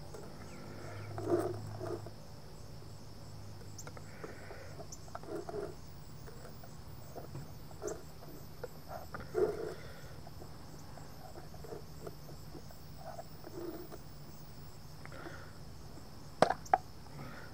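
Screwdriver prying at a plastic paint-can lid, with scattered faint scrapes and creaks, then two sharp snaps near the end as the lid comes free. Crickets chirr steadily throughout.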